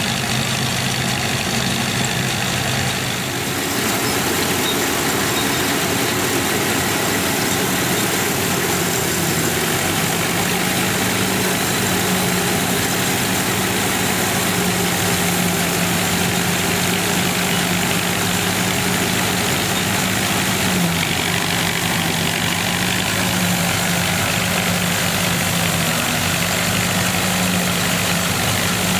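1931 Gleaner pull-type combine at work, its Ford Model A engine running steadily under load with the threshing machinery turning, and the towing tractor's engine running alongside.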